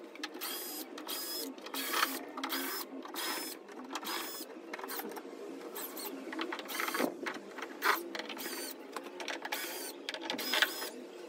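Cordless drill-driver running in short repeated bursts, about two a second, on the screws of a speaker cabinet's metal panel.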